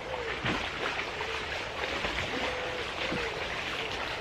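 A dog whining in a continuous run of short, wavering cries, over the splash and lap of river water.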